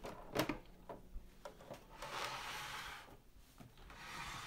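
A beer tap appliance being handled and turned around on a work surface: a light knock, a few soft ticks, then soft sliding and rubbing.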